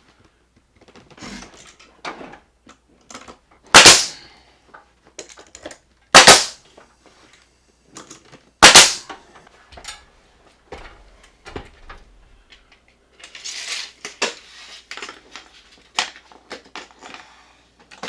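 Carpentry work: three loud, sharp bangs about two and a half seconds apart, with lighter knocks and clatter of tools and wood between and after them.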